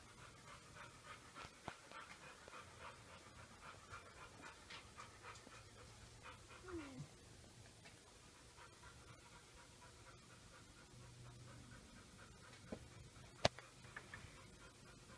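A dog panting faintly in quick, regular breaths for the first several seconds, with a short falling sound about seven seconds in. A sharp click near the end.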